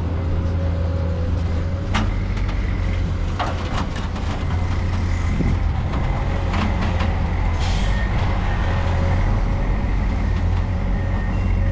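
Heavy diesel engine running steadily with a deep drone, with a few sharp clicks and a brief hiss of air nearly eight seconds in.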